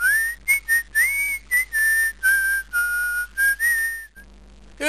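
A person whistling a short tune of about ten notes, some sliding up or down in pitch.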